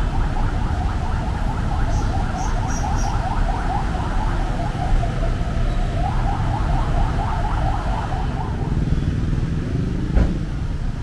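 Busy city street traffic: vehicle engines running with a steady low rumble. About eight seconds in, one engine rises in pitch as it speeds up, and a single knock follows just after ten seconds.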